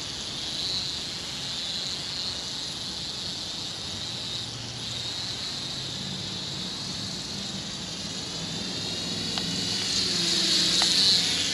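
ATTOP X-Pack 10 Nano mini quadcopter drone flying, its small propellers giving a steady high whine. The pitch wavers up and down from about halfway through as it manoeuvres, and it gets louder near the end.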